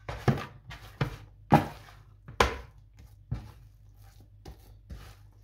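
Oiled hands kneading a soft, sticky yeast dough in a plastic bowl: a string of irregular wet slaps and thuds as the dough is pressed and turned against the bowl, the strongest about a second and a half and two and a half seconds in.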